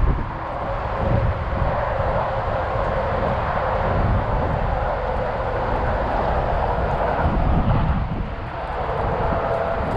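An engine running steadily at an even drone.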